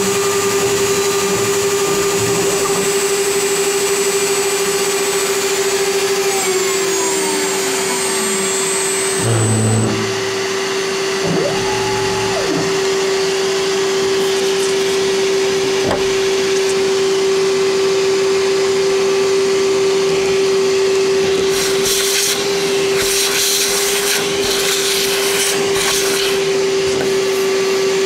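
CNC router cutting soft pine: the router spindle runs with a steady whine over a vacuum-like hiss. Stepper motors whine in rising and falling sweeps as the gantry moves, about a quarter to halfway in, and bursts of hiss come near the end.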